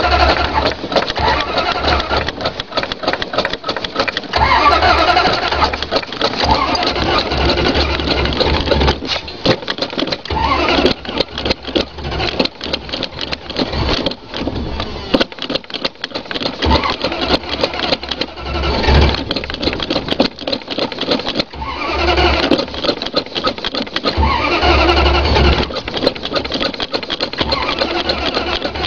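An old Dodge engine being cranked over by its starter in repeated spells with a rapid chugging rhythm while the gas pedal is pumped. The engine is flooded with fuel and does not settle into running.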